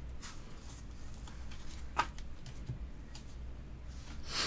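Trading cards and booster packs being handled: faint rustling and sliding of cards over a low steady hum, with a sharp tap about two seconds in and a short rustle near the end.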